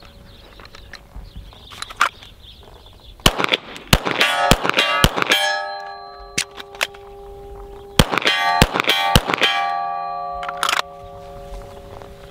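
Two quick strings of 9mm pistol shots from a Glock 34, a few seconds apart, with steel targets clanging on hits and ringing on in several steady tones after each string.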